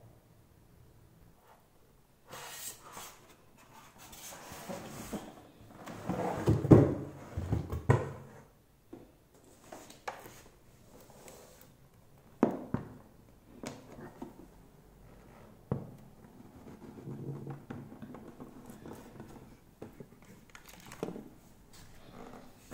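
Cardboard box and packaging being handled while a small flat-screen TV is unpacked: rustling and scraping with scattered knocks and thuds. The heaviest thuds come about six to eight seconds in, and sharp knocks follow now and then.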